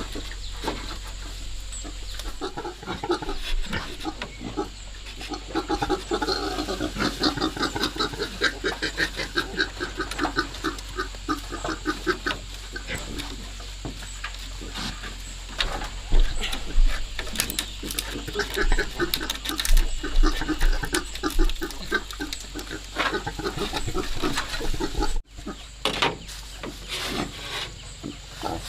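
Pigs grunting and squealing in quick strings of short calls, on and off.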